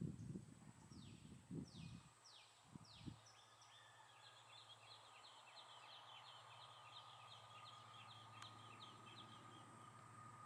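Faint bird calls: a few single falling whistled notes, then a quick run of short descending notes from about three and a half seconds until near the end, over a faint steady hum. A low rumble fills the first two seconds.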